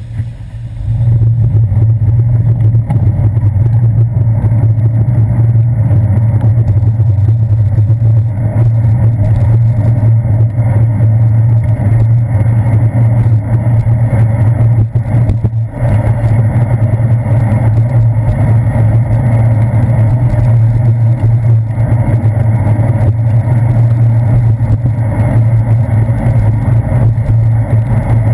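Loud, steady rumble of a bicycle rolling over wet pavement, picked up through a handlebar-mounted GoPro Hero 2 as road vibration and wind noise. It jumps up sharply about a second in as the bike gets moving.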